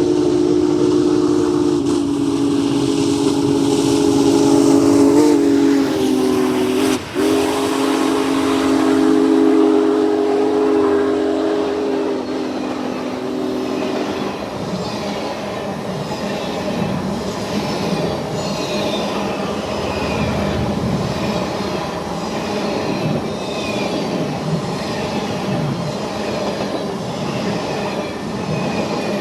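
Union Pacific Big Boy No. 4014's Hancock long-bell three-chime steam whistle sounds a low three-note chord. It is held for about fourteen seconds, with a brief break about seven seconds in, and its pitch drops slightly just before the break. After it stops, the train rolls by with a steady rhythmic clatter of wheels.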